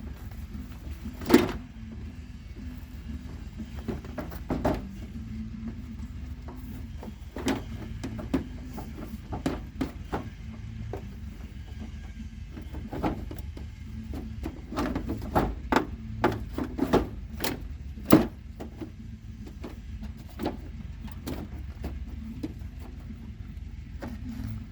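Scattered clicks and knocks of plastic and metal as a pickup's headlight and turn-signal assembly is handled and fitted back into the front end, over a steady low hum. The sharpest knocks come about a second in and again about 18 seconds in.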